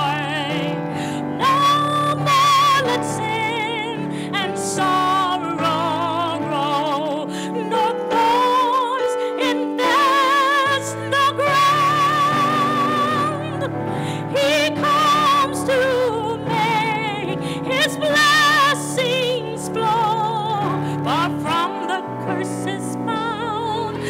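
A woman singing a hymn solo into a microphone with wide vibrato and sliding melismatic runs, over steady keyboard accompaniment.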